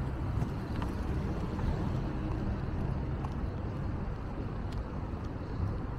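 Steady low outdoor rumble of city traffic and wind, with faint ticks now and then.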